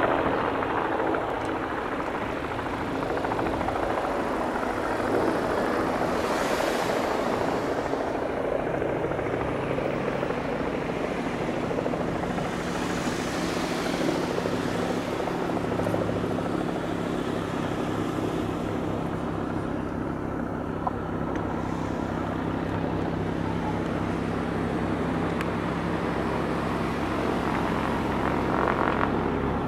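Piper PA-46 single-engine airplane taxiing: a steady engine-and-propeller hum whose low tone grows clearer about halfway through as the plane turns toward the listener.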